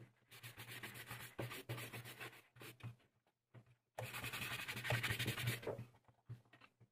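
A wooden-backed brush scrubbed quickly back and forth over a smooth leather wallet, a dry rapid scratching-swishing, in two spells with a short pause between them about three seconds in.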